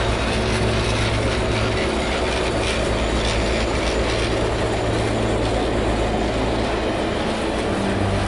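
Alaska Railroad passenger train cars rolling past at close range: a steady rumble of wheels on the rails, with a low hum underneath.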